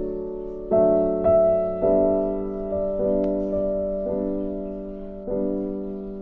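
Background music of slow piano chords, each struck and left to fade, with a new chord about every second.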